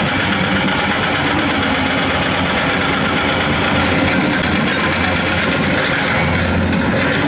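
Diesel engine of a Komatsu crawler excavator running steadily while it digs in hard limestone.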